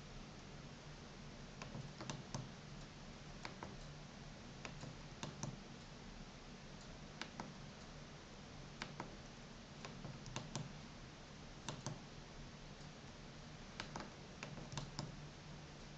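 Navigation keys of a FRITZ!Fon MT-F cordless phone handset clicking as they are pressed to scroll through menus: irregular single and double clicks about a second apart, over a faint low hum.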